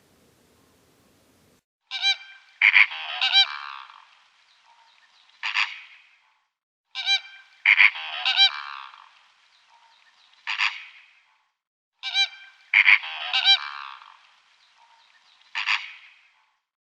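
A bird's loud honking calls in three identical bouts about five seconds apart; each bout is a quick run of several calls followed by one lone call.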